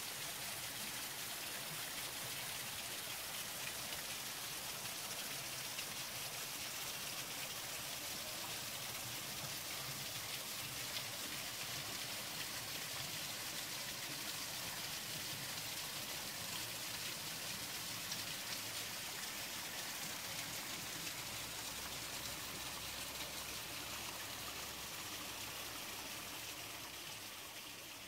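Steady rushing hiss of water with a fine crackle, fading out near the end.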